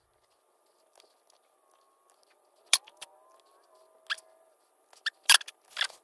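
Camera handling and footsteps: a few sharp clicks and knocks over quiet room tone, the loudest a close double knock about five seconds in.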